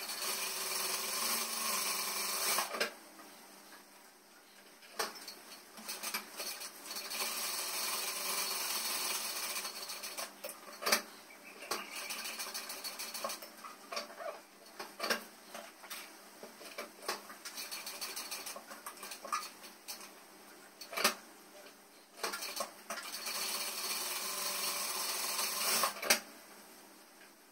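Industrial lockstitch sewing machine running in several steady bursts of a few seconds each as rows of topstitching are sewn on a denim placket, with short clicks between the runs.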